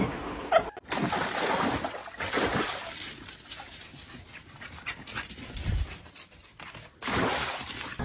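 A pet dog's sounds, broken off abruptly about a second in and again near the end.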